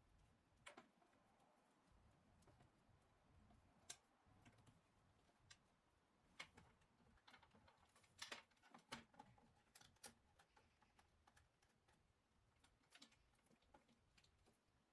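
Near silence with faint, irregular clicks and light taps scattered throughout, a few slightly louder ones about two-thirds of the way in.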